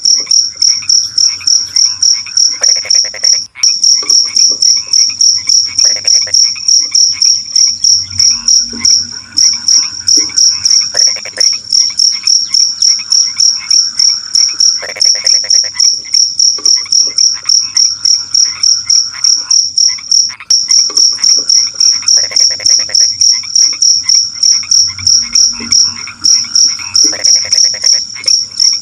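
Crickets chirping in a steady, high-pitched pulsing of about four to five pulses a second, with frogs croaking in short bursts every few seconds.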